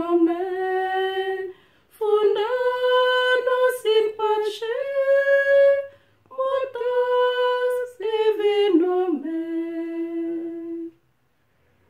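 Two women singing together unaccompanied on one melody line, in three phrases with short breaths between. The last note is held and then stops about a second before the end.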